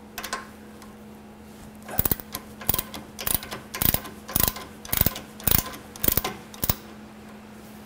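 Ratchet wrench swung back and forth to undo a rear brake caliper mounting bolt, its pawl clicking in about nine short bursts, close to two a second, from about two seconds in to near the end.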